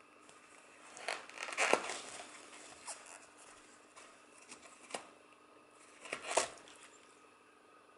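A cat biting and tearing at a roll of kitchen paper towel: papery ripping and crunching in short bursts, loudest at about two seconds in and again at about six seconds in.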